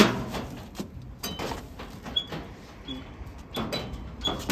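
Knocks and clunks from a cargo tricycle's body and seat as a person climbs on and settles at the controls: one sharp knock at the start, then several lighter clatters.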